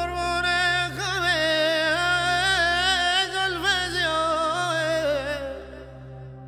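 A man singing a long, held Middle Eastern-style vocal line with wavering ornaments in the pitch, over steady backing music. The voice fades out about five and a half seconds in, and the backing music carries on.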